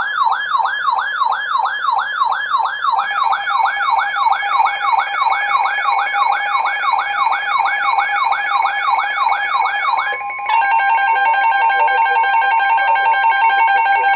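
Emergency Alert System attention tones: a siren-like warble sweeping up and down about three times a second, joined by a steady tone about three seconds in. About ten seconds in it switches to a steady, slightly louder chord of several tones.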